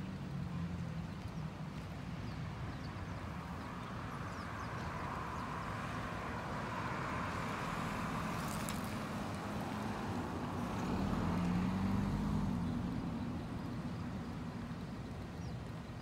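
Road traffic: a car passing on the street, its tyre and engine noise slowly swelling to a peak about twelve seconds in, then fading.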